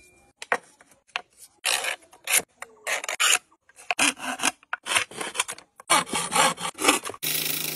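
A thin-bladed hand bow saw cuts a blank of animal horn clamped in a vise, making short rasping back-and-forth strokes at an uneven pace. Near the end a steady hum starts.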